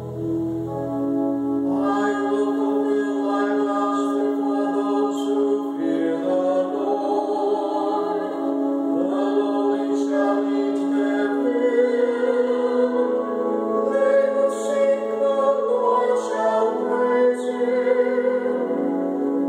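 A man and a woman singing a psalm setting together, accompanied by a pipe organ. The organ holds sustained chords at first, and the two voices come in about two seconds in.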